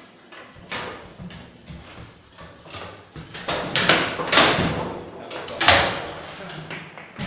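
Table football in fast play: the ball cracking off the figures and the table walls, with the rods sliding and knocking against their stops. A quick run of loud knocks comes from about three and a half to six seconds in.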